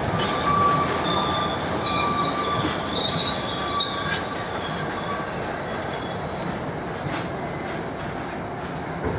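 A long freight train of GBRf open box wagons rolling slowly past, with a steady rumble of wheels on rail. A high wheel squeal rings for the first few seconds and fades out about halfway, and a few sharp clicks sound as the wheels cross rail joints.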